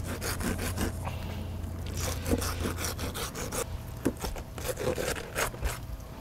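Fillet knife sawing through bull shark meat along the cartilage backbone in quick, repeated strokes.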